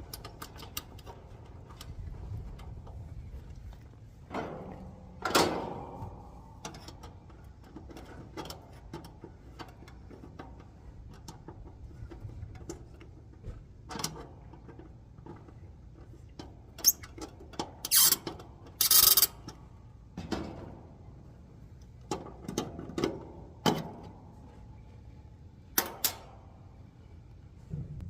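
Intermittent knocks, clanks and scraping from handling equipment and tools during an outdoor HVAC condenser installation, with a cluster of loud, bright clatters and scrapes about two-thirds of the way in. A faint steady low rumble runs underneath.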